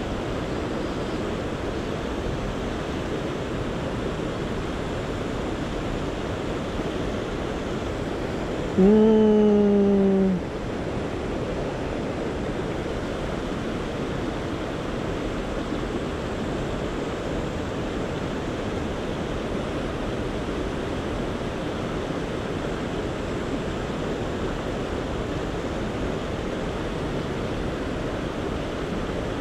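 Steady rushing of the Niyodo River's main current flowing past the wading angler. About nine seconds in, one short, louder pitched sound lasts about a second and a half, first rising and then gently falling in pitch.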